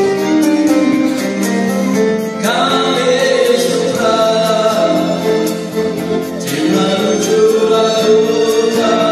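A closing hymn sung with instrumental accompaniment.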